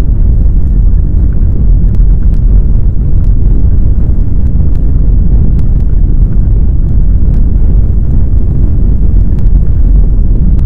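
Loud, steady low rumble of earthquake ground shaking, with a few faint crackles scattered over it.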